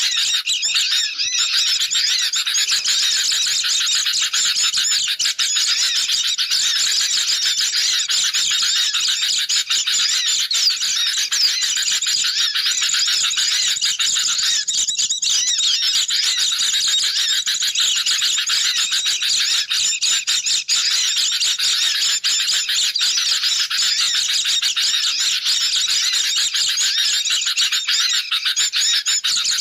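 A dense, unbroken chorus of many birds chattering and trilling at once: agitated sooty-headed bulbuls mixed with white-eyes. This is a bird-lure recording of excited, alarmed calling.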